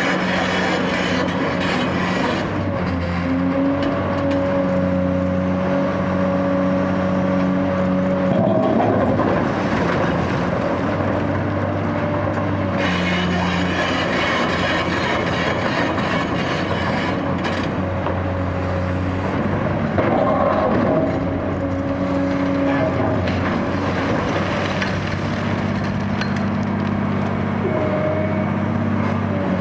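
Cat 385C hydraulic excavator's diesel engine running hard under hydraulic load. Its pitch steps up and down every few seconds as the boom and tool work. Over it come irregular crunching and scraping from the concrete foundation being demolished.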